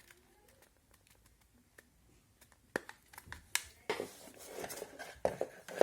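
Flat screwdriver prying at the glued plastic case of a laptop charger: a few sharp clicks of plastic giving way, then a couple of seconds of scraping and cracking near the end.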